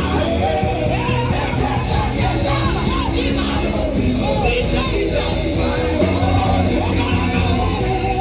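Live praise and worship music: a band playing with voices singing.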